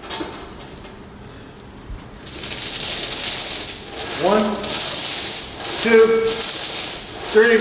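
Heavy steel chains hanging from a loaded barbell jangling and clinking during back squats, starting about two seconds in and swelling with each rep, with a short pitched sound about every second and a half.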